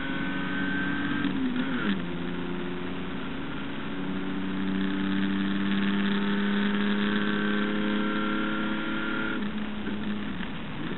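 Onboard sound of a Holden HQ race car's straight-six engine running hard. The engine note falls about a second and a half in, climbs slowly for several seconds, then falls again about nine and a half seconds in.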